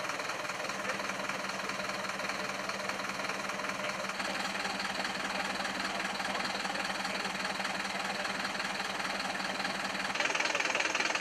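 Vehicle engine idling steadily with a constant hum; the sound gets louder and brighter about ten seconds in.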